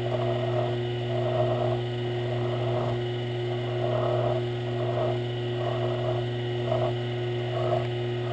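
Hand file rasping against brass stock spinning in a Sherline metal lathe, in repeated strokes about once or twice a second, over the lathe's steady motor hum.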